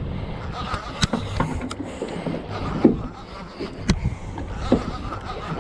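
Camera handling noise: several sharp knocks and rubbing as fabric and fingers brush the camera, over a steady low hum with wind and water noise of a boat at sea.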